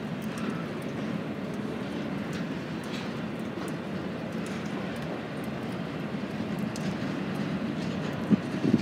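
Freight train of double-stack container cars rolling past, a steady rumble of steel wheels on rail, with two sharp clanks near the end.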